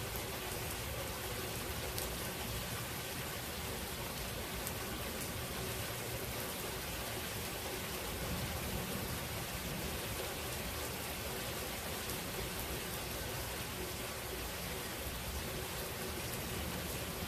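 Thunderstorm rain falling steadily: an even hiss of rain with faint scattered drop ticks.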